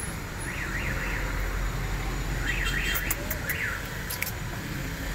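Car alarm warbling in two short bursts, its pitch sweeping rapidly up and down, over a low traffic rumble.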